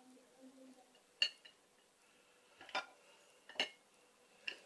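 Squares of chocolate set down one by one on a ceramic plate: four light clicks, each with a brief ring from the plate.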